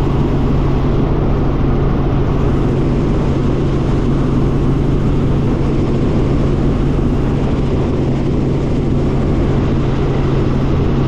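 Loud, steady engine and rotor noise heard inside the cabin of a light helicopter in cruise flight, with a constant low hum under it.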